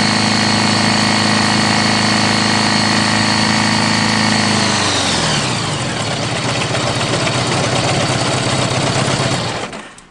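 Honda GL1100 Gold Wing flat-four engine running steadily at a raised speed, then dropping to a lower idle about halfway through, and shut off near the end. This engine has rod knock and an oil pressure drop.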